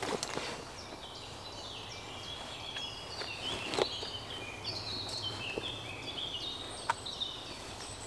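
Several birds singing, short high notes overlapping one another, with a few crunches of footsteps and paws in dry leaf litter.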